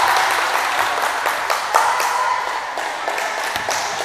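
Scattered clapping mixed with shouting voices, echoing in a large sports hall and slowly dying down.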